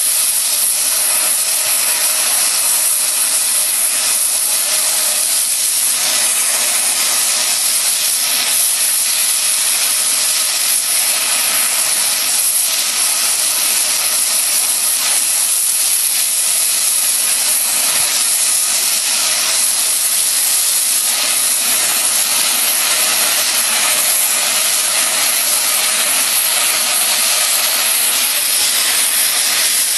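Oxy-fuel cutting torch hissing steadily as it flame-cuts through steel railroad rail.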